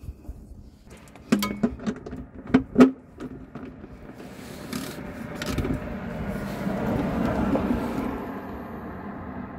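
Sharp metal clinks and knocks as a socket and extension bar are fitted to an engine sump drain plug. Then a vehicle passes, swelling over a few seconds and fading near the end.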